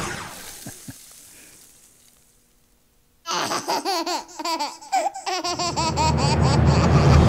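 Trailer audio of an animated baby laughing and giggling in bursts, starting about three seconds in after a sound fades away and a short quiet. About two seconds later a loud low rumble joins the laughter and builds. Both cut off abruptly at the end.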